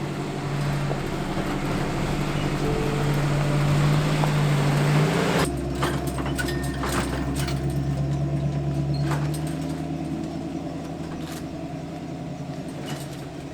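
Jeep CJ7's engine running, rising in pitch over the first few seconds, then after an abrupt change about five seconds in settling to a steadier sound that slowly fades.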